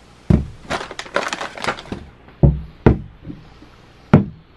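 Grocery items being set down on a checkout counter: four hard knocks, with a run of lighter clatter in between about a second in.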